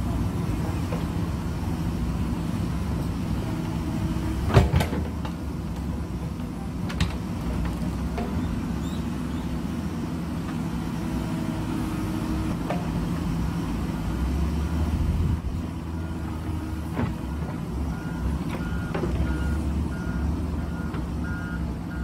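JCB backhoe loader's diesel engine running steadily under load as the backhoe digs, with several sharp clanks from the bucket and arm, the loudest about four and a half seconds in. Near the end, a run of short, evenly spaced beeps.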